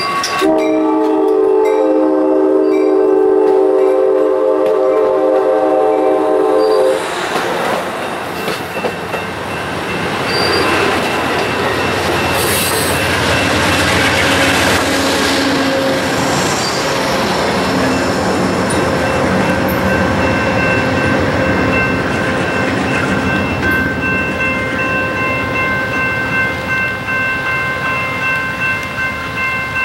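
Amtrak California passenger train passing close by: its horn sounds one long chord of several notes for about seven seconds and cuts off. Then come the rumble and clatter of the bilevel cars and the trailing diesel locomotive going by, loudest about halfway through and easing as the train leaves.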